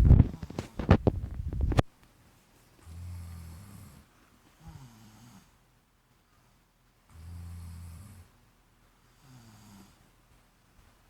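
Two sleepers snoring in alternation: a longer, steady low snore about every four seconds, each followed by a shorter snore that falls in pitch. The first two seconds are covered by a loud, crackly noise that stops abruptly.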